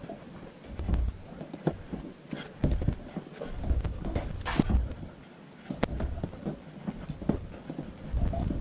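Husky puppy chewing, heard close up through a camera strapped to her harness: irregular clicks and knocks over low thumps and fur rustling.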